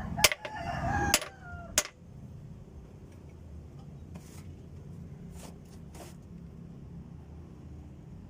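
A rooster crowing once, with three sharp knocks during and just after the crow. A low, steady background hum follows.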